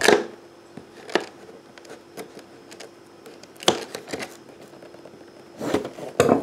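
Toy packaging, cardboard box and plastic, being opened by hand: a few scattered sharp snaps and scrapes, with a longer cluster of scraping near the end.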